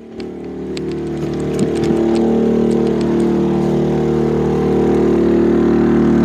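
Genmax GM3200i inverter generator engine speeding up as more load is switched on, then holding a steady higher speed near its 2800-watt full load. A few light clicks come in the first second or so.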